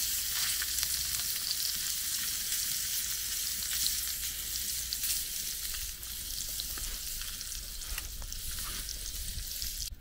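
Sausages sizzling as they fry in a small square pan over a campfire: a steady frying hiss with scattered small ticks and pops.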